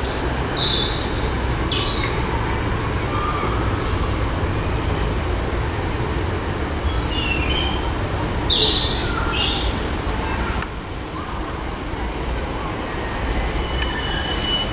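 Class 153 'Sprinter' single-car diesel multiple unit running slowly into the platform, a steady low diesel rumble from its Cummins engine. Brief high-pitched squeals come about a second in and again around eight to nine seconds in.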